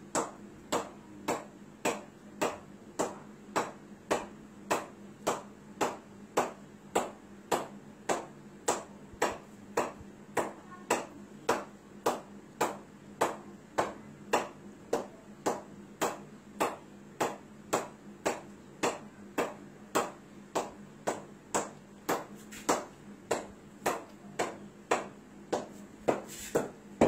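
Cricket bat repeatedly knocking a ball hung on a string: crisp, evenly spaced taps about twice a second. A faint steady hum runs underneath, and there is a louder noise at the very end.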